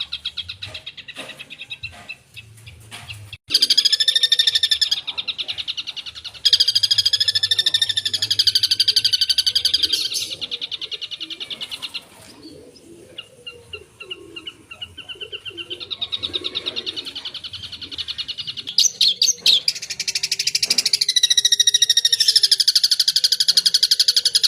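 Long-tailed shrike (cendet) singing a fast, rattling, buzzy song full of mimicked calls, in loud phrases a few seconds long with softer stretches between them.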